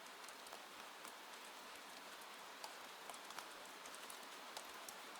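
Rain falling on a porch roof: a soft, steady hiss with scattered drops tapping through it.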